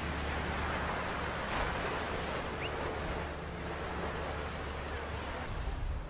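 Small sea waves breaking and washing up on a sandy beach, one wave louder about one and a half seconds in, over a steady low rumble.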